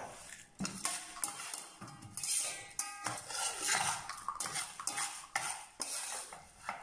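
A small spoon scraping ice cream out of a small cup and clinking against glass dessert cups, in many irregular strokes, with a brief ringing clink about three seconds in.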